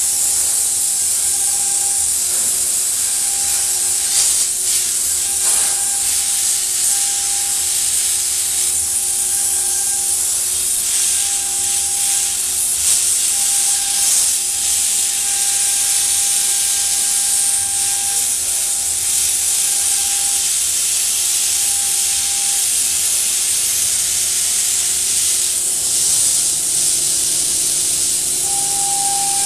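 CNC milling-engraving machine at work: a steady high hiss from the high-speed spindle and cutting, with a faint tone that comes and goes.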